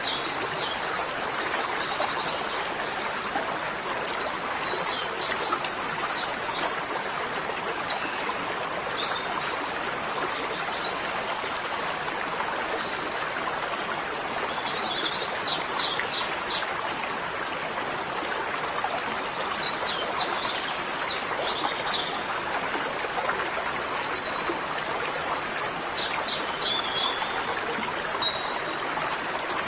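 Small birds singing short phrases of quick high chirps every few seconds over a steady rush of flowing stream water.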